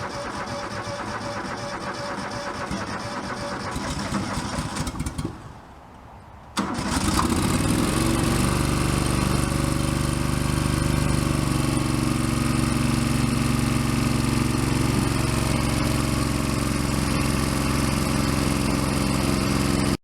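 Tractor engine running just after a cold start. It drops away briefly about five seconds in, then comes back suddenly louder and runs steadily.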